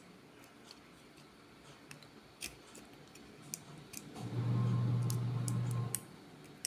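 Scattered small plastic clicks and ticks as the locking clips of a two-pole wall switch's casing are pried open. About four seconds in, a steady low hum lasts for nearly two seconds.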